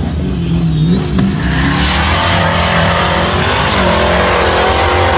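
Off-road buggy engine revving hard under full load on a steep dirt hill climb, its pitch rising and falling as it flings dirt.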